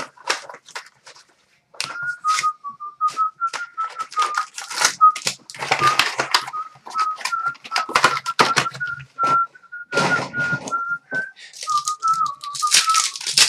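A person whistling a tune, starting about two seconds in, over the crinkle and tearing of foil trading-card pack wrappers and cards being handled.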